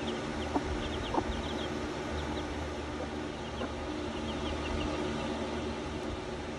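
Six-day-old Silkie chicks peeping: short, high, falling chirps in quick runs, over a steady low hum. A couple of short, louder sounds come about a second in.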